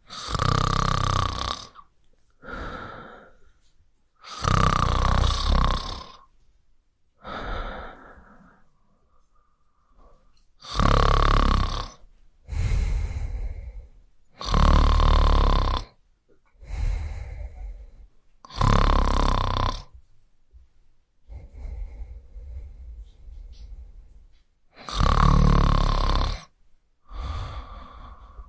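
A man snoring: six loud snores a few seconds apart, most followed by a softer breath, with a longer, quieter spell of breathing past the middle.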